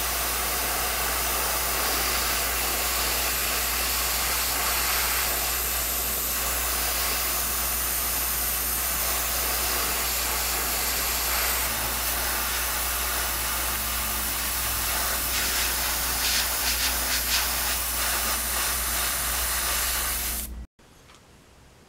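Airbrush spraying paint with a steady hiss, wavering a little for a few seconds in the later part, then cutting off suddenly near the end.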